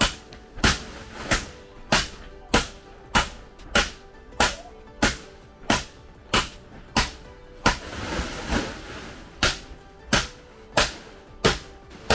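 Wooden stick pounding a sack of dried corn ears on a concrete floor to knock the kernels loose: a steady series of thuds about every two-thirds of a second, with a short break about eight seconds in.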